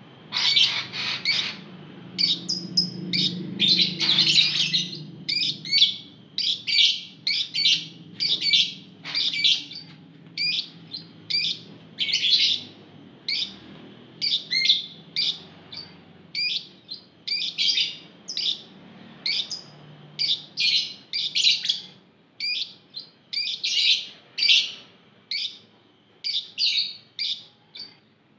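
A flock of Fischer's lovebirds chirping: sharp, high chirps repeated about once a second, some close together and overlapping.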